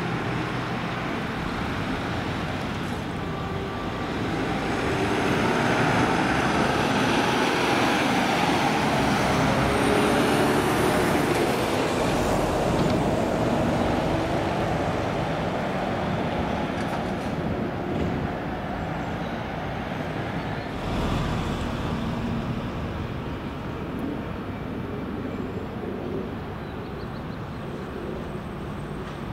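Road traffic noise as a Mercedes-Benz Sprinter fire-brigade van drives past and pulls away through a junction. The engine and tyre noise swells over the first several seconds, then fades to a steady background of passing traffic.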